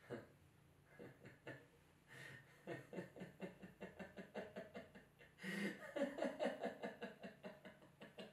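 A man laughing: a few short chuckles at first, building from about three seconds in into a steady run of quick ha-ha pulses, loudest in a burst a little past halfway.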